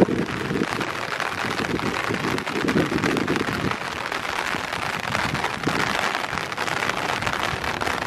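Heavy rain pouring down in a steady hiss, with uneven low rumbling swells underneath.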